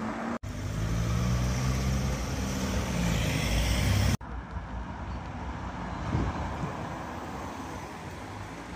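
Cars driving past on a road. First a car engine pulls away with a slowly rising hum, then the sound cuts off abruptly and is followed by softer passing-traffic and tyre noise as a hatchback goes by close.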